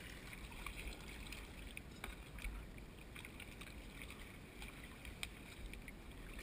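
Small splashes, drips and water lapping around a kayak hull as it is paddled slowly, with scattered irregular ticks over a low steady rumble.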